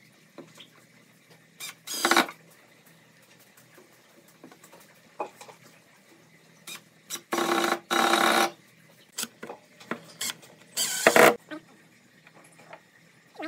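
Cordless drill driving screws into the metal hinges of a pine box lid, in short bursts of motor whine: one about two seconds in, two longer back-to-back runs about halfway through, and a last short one near the end, with light clicks of handling in between.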